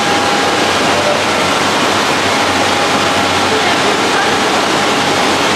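Water inflow jet pouring into a koi holding tank, a steady loud rush and splash of churning water.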